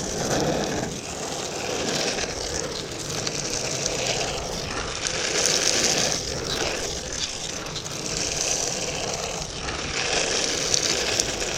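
Surfskate wheels rolling on pavement, the rolling noise swelling and fading every couple of seconds as the board is pumped and carved.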